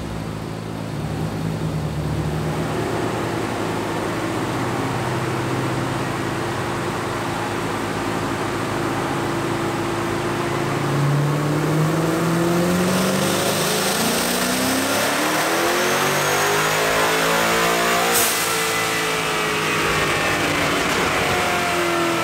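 Twin-turbo Ford 5.0 Coyote V8 making a wide-open-throttle pull on a chassis dyno. It runs steadily at first, then about halfway through the revs climb for several seconds with a faint high whistle rising alongside. A sudden sharp hiss comes near the end, and the revs fall away.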